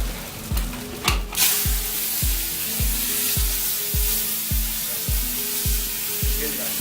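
Hot oil in a pan starts sizzling suddenly about a second in as food goes in, then keeps sizzling, over background music with a steady beat.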